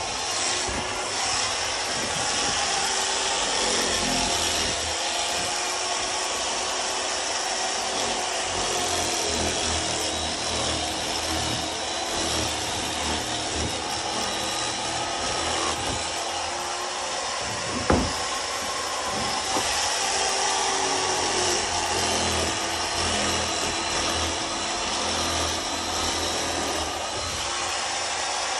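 Handheld electric foam-cutting knife running steadily as its blade slices through motorcycle seat foam, with a motor hum and hiss throughout. A single sharp knock about two-thirds of the way through.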